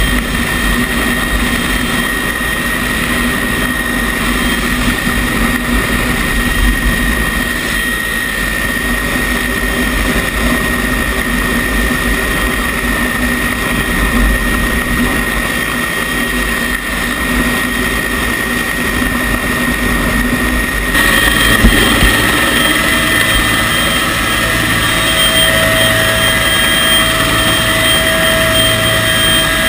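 Rescue helicopter running steadily, its rotor and turbine whine heard up close. About two-thirds of the way through the sound changes abruptly and a new higher whine comes in.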